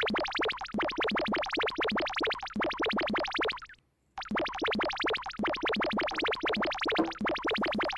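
Synthesizer music made of fast, evenly repeated notes, played as two phrases with a brief gap about halfway through.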